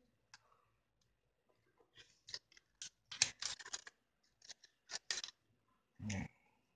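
Scissors snipping through a thin sheet of clear plastic: a run of short, crisp cuts starting about two seconds in, in quick groups for about three seconds.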